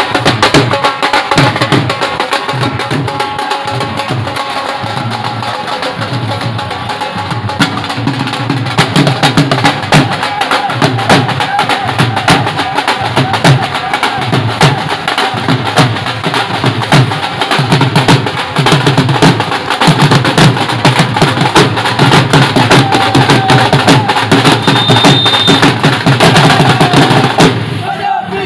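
Several Punjabi dhols played together with sticks: loud, continuous, driving drumming on the double-headed barrel drums.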